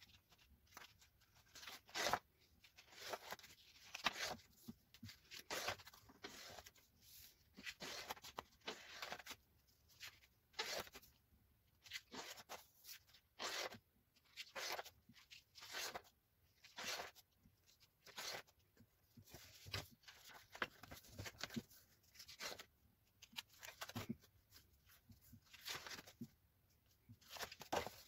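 Paper rustling as the pages of a spiral-bound sketchbook are handled and turned: many short rustles, coming on and off irregularly, about one or two a second.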